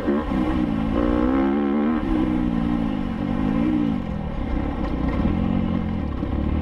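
Enduro motorcycle engine under hard throttle, its pitch rising and falling as the rider rolls on and off the gas through the gears, with a dip about four seconds in.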